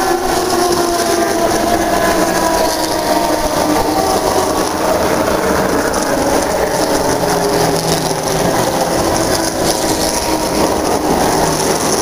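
Turismo Carretera race car engines running past at speed. Pitch falls as a car goes by near the start, then gives way to a steady, dense mix of engine noise.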